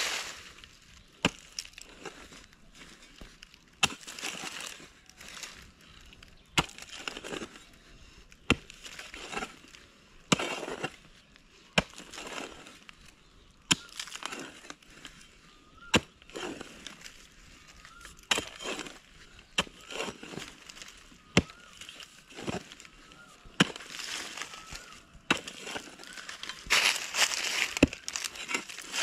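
Short-handled hoe (farua) chopping into dry, stony soil, with a sharp strike about every second and a half. Each strike is followed by loose earth scraping and crumbling.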